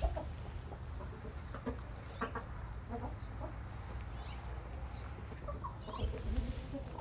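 Young roosters clucking softly in short scattered calls, with three brief high chirps spaced about two seconds apart, over a steady low rumble.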